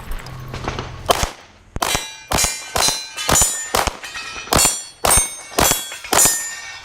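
Steel plate targets clanging as they are hit: about a dozen sharp strikes, roughly two a second and unevenly spaced, each with a short high metallic ring.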